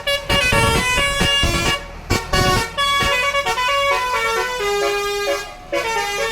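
Indonesian bus 'telolet' multi-tone musical horn playing a melody, loud, its notes changing several times a second, with low thuds underneath.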